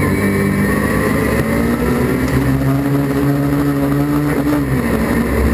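Autograss racing car's engine heard from inside the cockpit, running at fairly steady raised revs, lifting a little about two seconds in and dropping back near the end.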